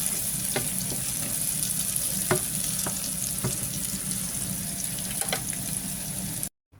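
Onion and pepper sauce sizzling steadily in a frying pan, with scattered light clicks; the sizzle cuts off abruptly near the end.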